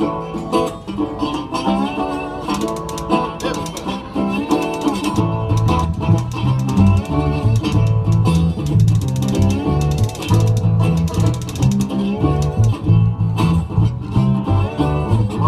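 Live band playing a country-style instrumental intro on plucked strings, with a bass line coming in about five seconds in.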